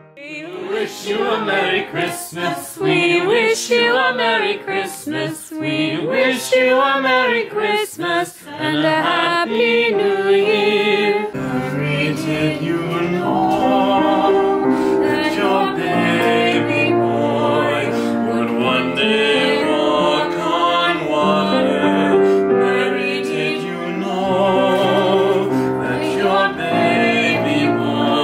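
A group of voices singing together with piano accompaniment. About eleven seconds in the sound changes abruptly to steadier, fuller chords.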